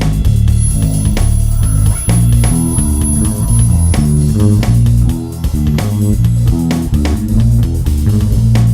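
Bass guitar improvising a solo: a quick run of low plucked notes moving step by step, over a regular beat of sharp hits.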